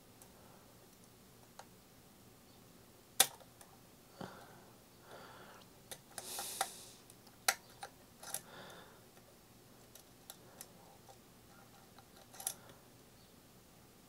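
Lock pick and tension wrench working the pin stack of a BUVA 2002 euro cylinder while it sits in a false set: a few sharp metallic clicks several seconds apart, the loudest about three seconds in, with soft scraping of the pick between them.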